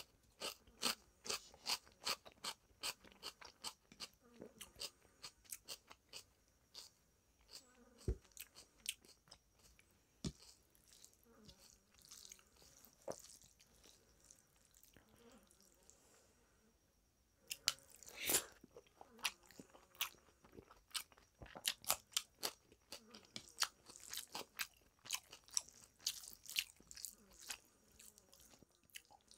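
Hand mixing rice with dal and fried vegetables on a plate, picked up close: a long run of quick, sharp, faint clicks, with a quiet stretch of a few seconds about halfway through.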